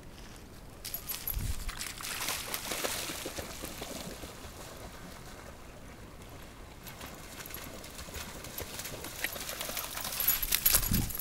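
A dog splashing through shallow lake water. The splashing swells early on, eases, then grows loudest near the end as the dog wades back ashore.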